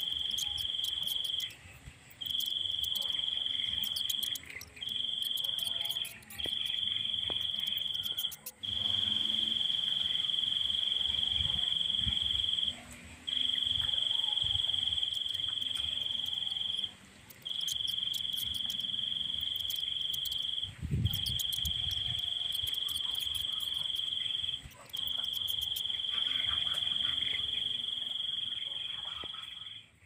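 An insect's high trill at one steady pitch, held for stretches of one to four seconds with short breaks between, over low wind rumble on the microphone.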